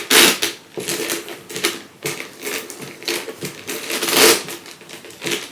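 Metal chain strap of a YSL Niki handbag clinking and rattling in irregular bursts as it is handled and untangled.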